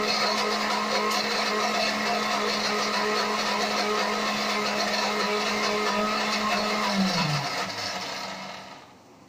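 Electric mixer grinder (mixie) motor running steadily while grinding a wet chutney. About seven seconds in it is switched off, and its whine falls in pitch and fades as the motor spins down.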